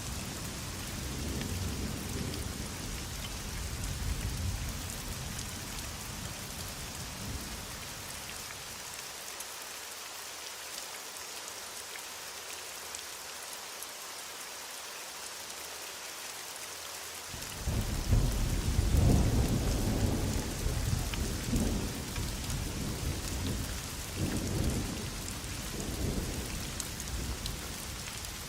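Heavy rain falling steadily, with thunder: a low rumble fades away in the first few seconds, then about two-thirds of the way in a loud peal breaks in suddenly and rolls on in several swells before dying down.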